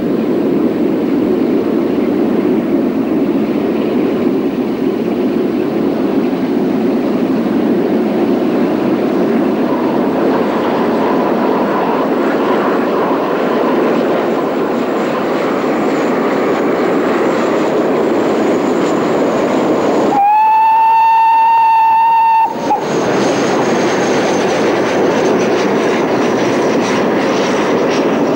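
Two GWR Castle-class steam locomotives working a train, with a steady running noise throughout. About twenty seconds in, a locomotive's steam whistle sounds one held note for about two seconds.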